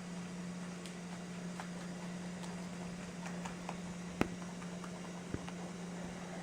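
Rabbits chewing salad greens: faint, irregular crunching clicks over a steady low hum, with one sharper click a little past the middle.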